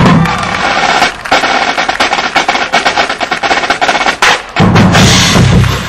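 Marching band drumline playing a snare feature: rapid, crisp snare strokes and rolls. About four and a half seconds in, a deep, low pitched sound joins underneath.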